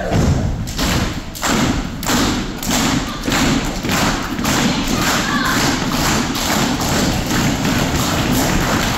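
Audience clapping and stomping in a steady rhythm, about three beats a second, with voices calling along.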